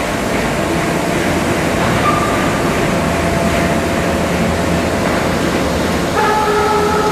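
Steady rumbling train noise, with a brief tone about two seconds in and a held tone of several notes starting about six seconds in.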